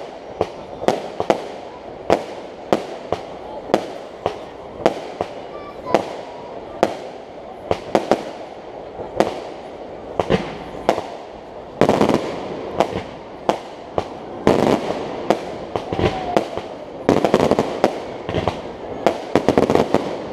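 Aerial fireworks bursting in a steady series of sharp bangs, about two a second, with denser crackling flurries in the second half.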